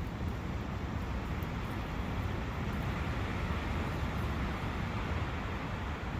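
Forest ambience of wind and a running brook: a steady, even rush.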